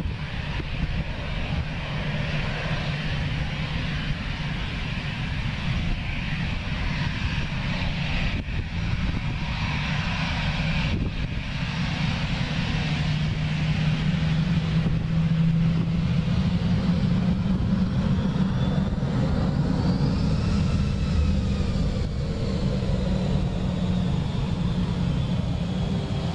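Airbus A320's twin jet engines at high thrust during the takeoff roll: a steady jet noise that grows louder as the aircraft nears. Falling whines follow from about two-thirds of the way in as it passes.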